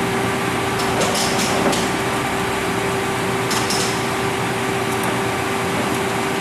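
Nardini engine lathe running with a steady hum while the headstock speed-selector knobs are turned, with a few light clicks about a second in and again about midway.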